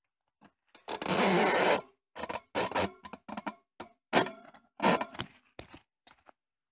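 Threaded steel rod being pushed through the wires of a grill rack made from old toaster-oven racks: a long metal scrape about a second in, then a run of uneven clicks and rattles as the threads catch on the rack wires.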